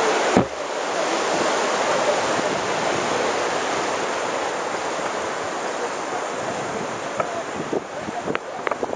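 Rushing white water of a rocky mountain river, a steady rush that fades slowly. A sharp knock about half a second in, and a few small clicks near the end.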